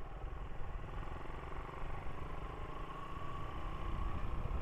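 Motorcycle engine running steadily at low road speed, with a low road-and-wind rumble, getting slightly louder near the end.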